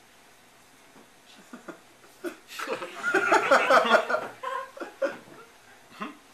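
Audience laughing: a quiet start, then a burst of many voices laughing together about two and a half seconds in that peaks and dies away by about five seconds, leaving a few scattered chuckles.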